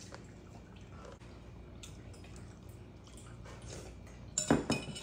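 Eating utensils clinking against a soup bowl: a few faint clicks, then a louder cluster of clinks and knocks near the end.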